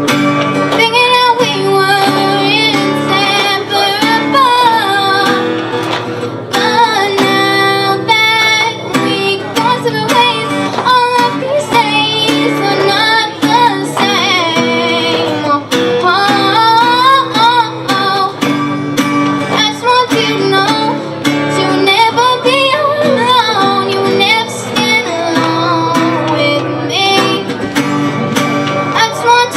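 A young girl singing a slow song while accompanying herself on a small acoustic guitar, her voice carrying the melody over steadily plucked chords.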